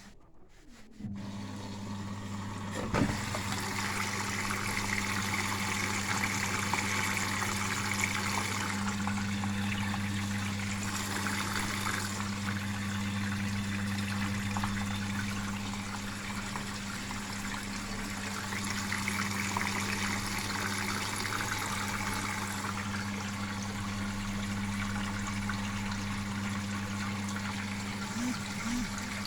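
Bosch Logixx 6 washing machine filling with water through its inlet valve in the service test: a steady rush of water with a constant low hum. It starts about a second in, with a click about three seconds in.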